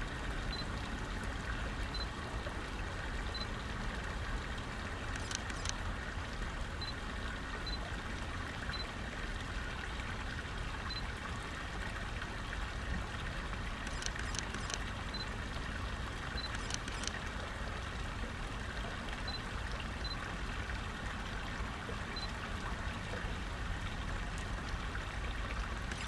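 Shallow stream water running in a steady trickle, with a few faint clicks a third of the way in and again about two-thirds of the way through.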